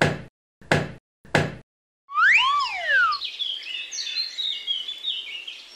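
A hammer strikes a nail into wood three times, about two-thirds of a second apart. Then comes a single whistle-like sound effect that rises and falls in pitch, followed by steady birdsong chirping.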